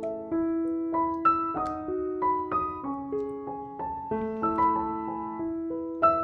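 Background piano music: a melody of single struck notes that ring and fade, a few notes a second.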